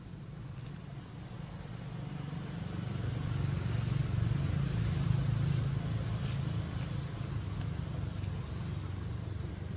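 Low rumble of a passing motor vehicle, swelling to its loudest about halfway through and then easing off, with a steady high insect drone behind it.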